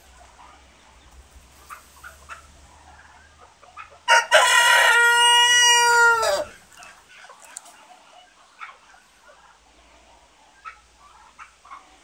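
A rooster crows once, loud, lasting about two and a half seconds in the middle, its pitch dropping away at the end. Faint clucking of hens is heard around it.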